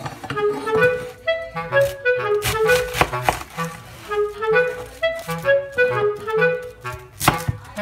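Background music: a melody of short stepped notes over a bass line.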